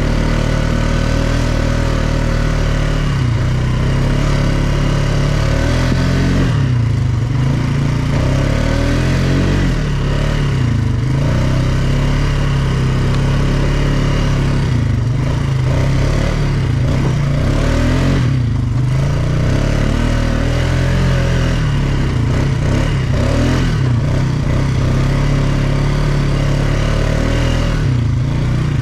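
ATV engine running under varying throttle, its pitch repeatedly rising and falling as it revs up and eases off.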